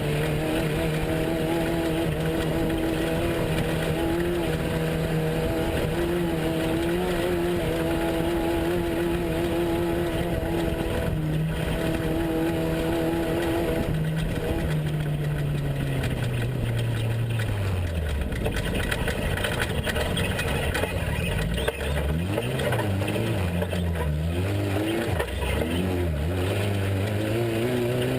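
Off-road race truck's engine holding steady revs, then the revs fall away over a few seconds about halfway through. They climb and dip unevenly for a while and rise again near the end, over a steady rush of noise.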